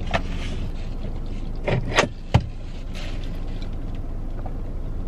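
Steady low hum of an idling car heard inside its cabin, with three short knocks about two seconds in as a drink tumbler is picked up.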